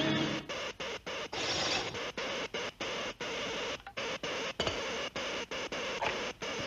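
Cartoon sound effect of a giant robot's machinery: a harsh mechanical chatter broken into quick bursts, about four or five a second.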